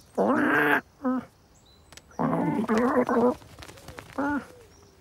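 Cartoon cat and crow vocalizations made by a human voice: two longer, strained cries and two short calls.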